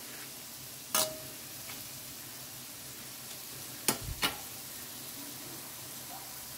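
Fish balls and kikiam deep-frying in oil in a metal wok, a steady high sizzling hiss. A metal spatula knocks against the wok once about a second in and twice in quick succession near four seconds.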